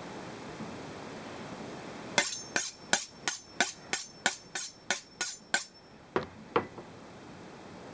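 Kitchen knife being sharpened, metal scraping on metal. About eleven quick, bright strokes at roughly three a second start about two seconds in, followed by two softer strokes.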